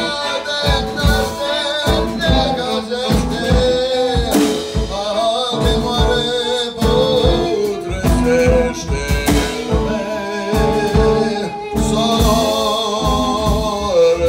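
Live band music: a man sings a song into a microphone over violin, accordion, drum kit and keyboard, with a steady drum beat.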